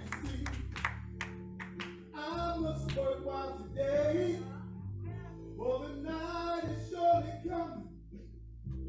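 Worship singing with instrumental accompaniment holding sustained low notes. A run of quick hand claps comes in the first two seconds.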